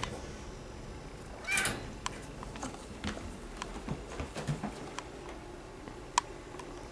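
Gray tabby kitten giving one short meow about a second and a half in, with scattered light knocks and scuffs as it climbs a carpeted cat tree, and one sharper click near the end.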